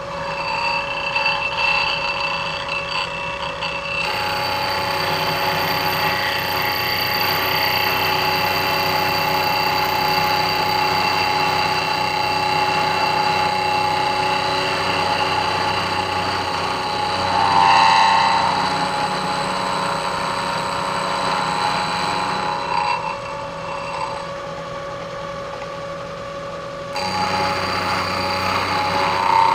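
An end mill on a manual milling machine cutting aluminum: a steady spindle whine under a dense cutting noise while the table is hand-cranked through the cut. The cut gets heavier about four seconds in, swells briefly a little past the middle, eases off for a few seconds near the end and then picks up again.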